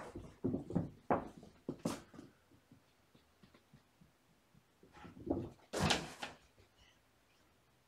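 Kittens thumping and scuffling as they jump down from a cat tree and scamper across a carpeted floor: a run of irregular knocks in the first two seconds, then another cluster about five to six seconds in.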